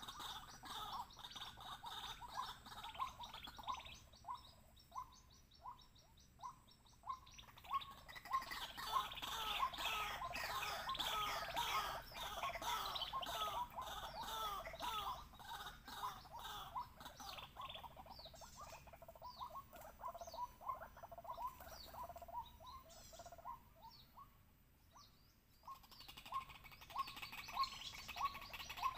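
White-breasted waterhen calling: long strings of short repeated notes that swell about eight seconds in into a dense chorus of overlapping calls, thin out later, almost stop shortly before the end, then start again.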